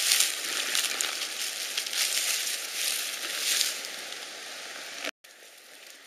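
Crackling rustle of dry grass and fallen leaves being handled close to the microphone, fading over the first five seconds and cutting off abruptly about five seconds in, followed by a faint hiss.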